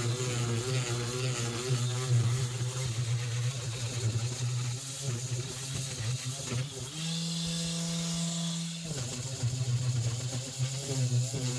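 Corded electric detail sander running against a fiberglass boat hull, sanding off old Bondo filler. Its motor hum wavers in pitch, then runs steadier and higher for a couple of seconds about two-thirds of the way through.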